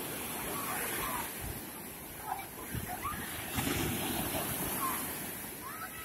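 Black Sea surf in a small storm: waves breaking and washing up the beach in a steady rushing noise that swells and eases.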